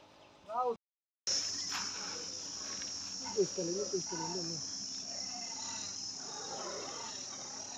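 Steady high-pitched drone of insects, starting about a second in, with a brief voice sound about halfway through.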